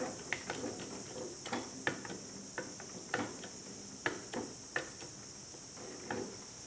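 Screwdriver turning out the screw that holds the rifle's action in its wooden stock: a string of short creaks and clicks at an uneven pace, two or three a second.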